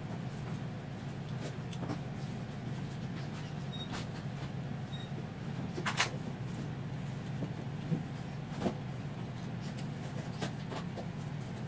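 Light clicks and taps of small metal screws, washers and nuts being fitted by hand into a stepper motor's flange on a plywood motor mount, with a sharper click about six seconds in and two more a little later. A steady low hum runs underneath.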